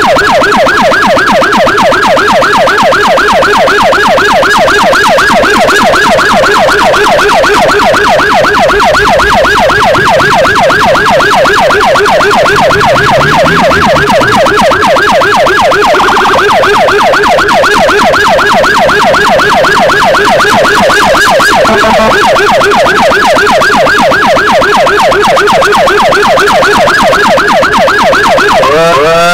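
Electronic emergency siren in a fast yelp, its pitch sweeping rapidly up and down several times a second without a break.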